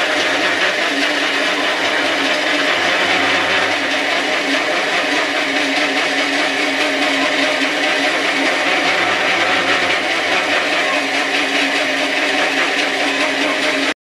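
Small feed pellet mill running steadily under load as grain mash is pressed through its die: a continuous mechanical whine with a grinding noise.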